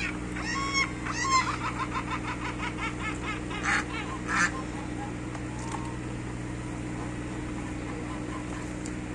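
Domestic geese honking: a few loud calls about half a second in, then a quick run of repeated cackling calls and two louder honks near the middle, quieter after that. A steady low hum runs underneath.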